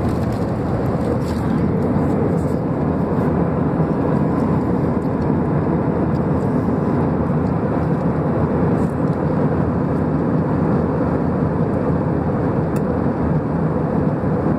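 Steady roar of a jet airliner's engines and rushing airflow heard inside the passenger cabin in flight, even and unchanging throughout.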